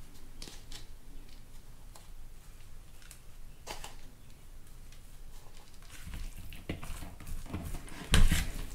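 Light rustling and soft clicks as shredded Parmesan is sprinkled by hand onto a bowl of diced chicken, rice and broccoli, then a black plastic spatula stirring the mix: scraping and tapping against the bowl, loudest near the end.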